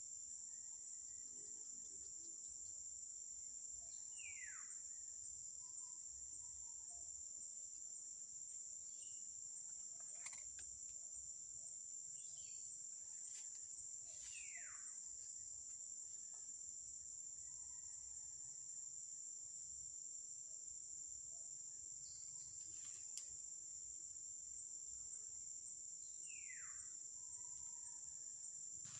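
Steady high-pitched insect chorus of the forest, with three short whistled bird calls, each falling quickly in pitch, spaced about ten seconds apart.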